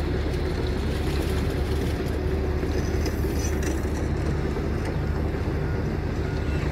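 Heavy diesel truck engine idling steadily close by, a constant low drone.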